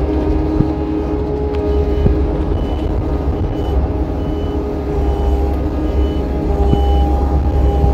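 Gehl CTL80 compact track loader running, its diesel engine and hydraulics humming steadily under the mounted Marshall tree saw. From about two seconds in, the loader's reverse alarm beeps at an even pace of about three beeps every two seconds, the sign that the loader is backing up.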